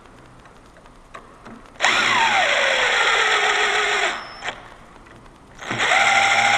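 Power drill driving screws, run twice. The first run's whine falls steadily in pitch over about two seconds. The second starts near the end and holds a steady pitch.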